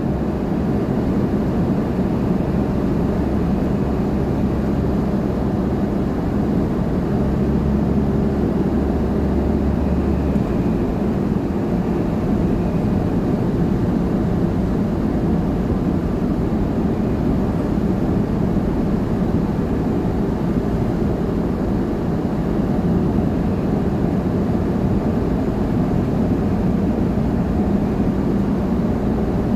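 4x4's engine and tyre noise heard inside the cab while driving steadily, a constant low drone; a deeper hum underneath drops away about ten seconds in.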